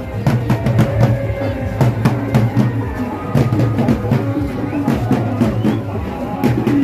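Music driven by loud, rapid drumming, with frequent drum strokes throughout.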